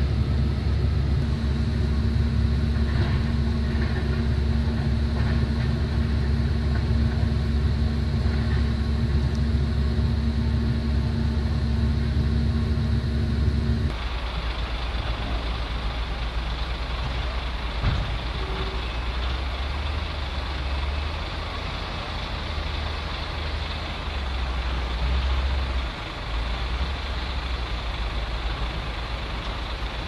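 Excavator diesel engine running steadily at close range, a loud even hum. About 14 seconds in it cuts to a fainter, rougher low rumble of heavy machinery engines working farther off.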